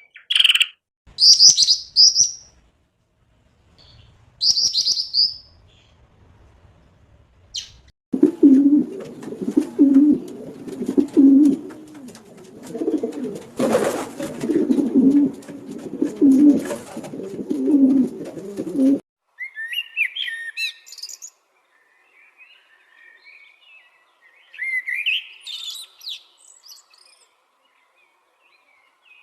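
Wild birds calling: short high chirps, then a dove cooing in low repeated notes about once a second for roughly eleven seconds, then more chirping songbird calls near the end.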